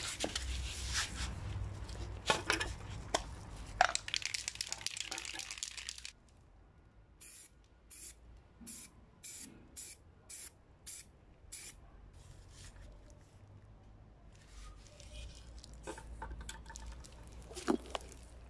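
Aerosol spray-paint can spraying onto a car turn-signal housing: one long continuous hiss for about six seconds, then about ten short bursts, roughly two a second, with a few softer sprays near the end.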